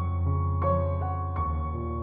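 Background music: soft new-age piano or keyboard chords, a new chord about every 0.7 seconds over a steady low bass.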